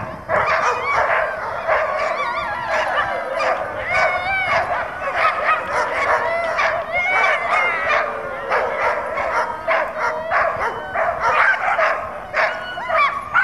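A team of harnessed sled dogs barking, yipping and yelping over one another in a dense, unbroken chorus, the excited clamour of sled dogs standing hitched and waiting to run.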